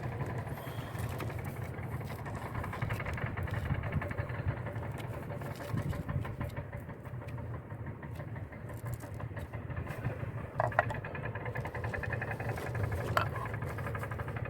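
A steady low machine hum, with a few sharp clicks about eleven and thirteen seconds in.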